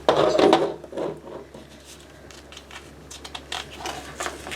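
Plastic Lego bricks clattering and clicking as they are handled: a loud clatter at the start and another about a second in, then a string of small, sharp clicks.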